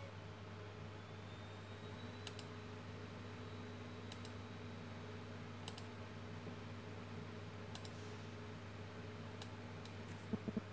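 Computer mouse clicks, about seven short sharp clicks spaced a second or two apart, over a steady low hum. Near the end comes a quick run of louder low knocks.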